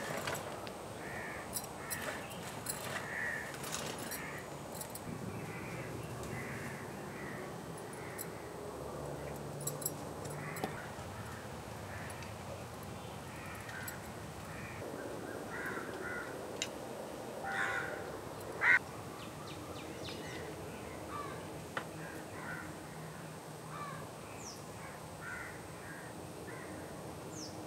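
Birds calling repeatedly in short calls over quiet open-air ambience, with scattered light clicks and taps of kitchen utensils and one sharp clink about two-thirds of the way through.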